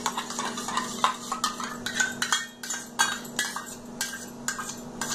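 Metal spoon scraping beaten curd out of a bowl into a steel pan, with repeated irregular clinks and taps against the bowl and pan rim.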